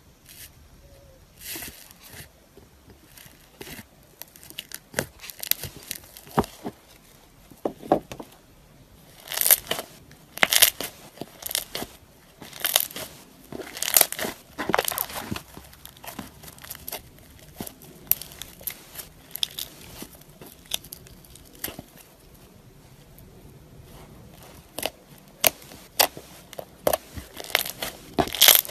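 Glitter-topped slime being poked, kneaded and squeezed by hand, giving irregular sticky clicks and crackles. They are loudest and densest from about a third of the way in to past the middle, and again near the end.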